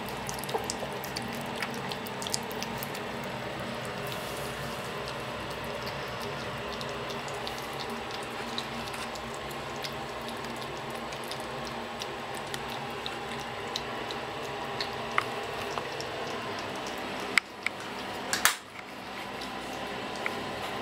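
Two cats eating from a plastic bowl: wet chewing and crunching of dry kibble, with many small clicks. Two sharp knocks near the end.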